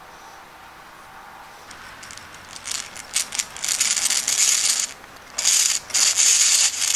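Hand-cranked drill boring into pine: gear whir and the bit cutting wood, in spurts of cranking with a short pause about five seconds in. It is a shallow hole to recess a screw head.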